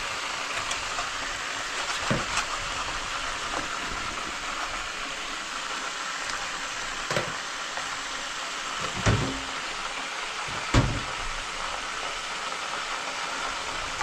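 Hot oil sizzling steadily as fish deep-fry in a pot, with a few sharp knocks of a kitchen knife on a wooden cutting board, the loudest two near the end.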